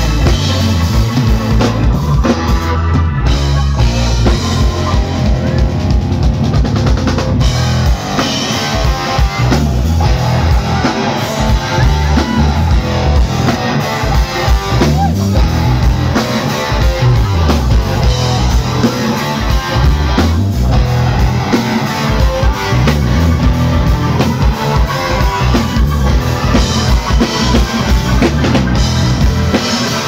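Live rock band playing through a PA: electric guitar, keyboard and drum kit, loud and steady.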